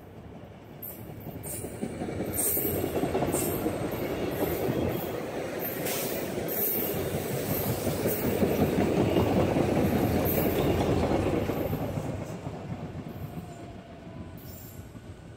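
SEPTA Regional Rail electric multiple-unit commuter train passing close by at speed, its wheels rumbling on the rails with sharp intermittent clicks. It builds from about a second in, holds loud for about ten seconds and fades away near the end as the train recedes.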